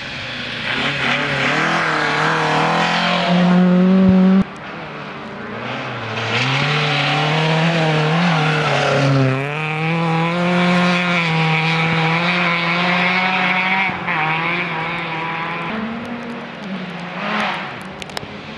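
Rally cars at full throttle, one after another: an engine revving higher and higher until the sound cuts off suddenly about four seconds in, then another car's engine climbing, dropping briefly at a gear change and holding high revs before it fades away.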